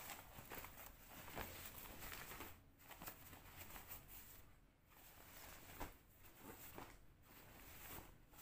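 Faint rustling and rubbing of a khaki cotton cloth bag being handled and turned over: fabric brushing fabric in short, irregular strokes.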